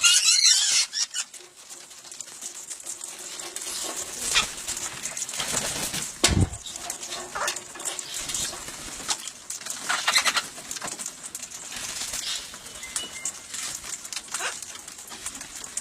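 Wild parrots giving harsh squawks in the first second, then wings flapping and scattered sharp clicks as the birds move about and feed.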